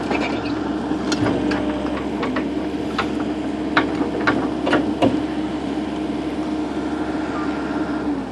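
Komatsu PC120LC-6 excavator's diesel engine running steadily under the operator's control. Several sharp metallic clanks stand out between about one and five seconds in as the machine moves.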